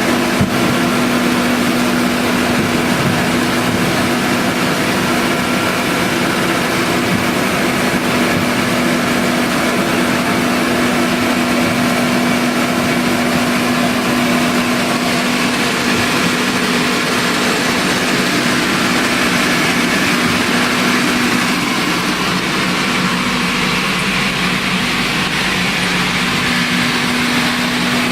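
Ginger washing machine running steadily: a constant low motor hum over a loud, even hiss.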